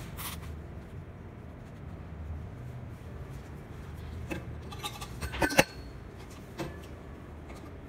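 Metal mop handle and plastic fittings knocking on a hard tabletop while a twist mop is put together: a few sharp clicks and clatters, with a quick rattling cluster a little past the middle, over a low steady rumble.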